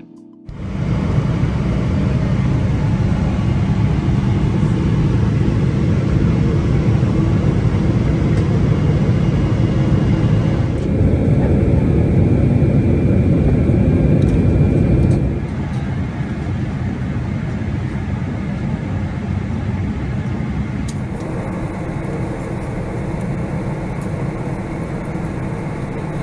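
Steady rushing cabin noise of a Boeing 777-300ER heard from a window seat near the wing: engine hum and airflow. It drops noticeably about fifteen seconds in, and its tone shifts abruptly twice, at about eleven and about twenty-one seconds.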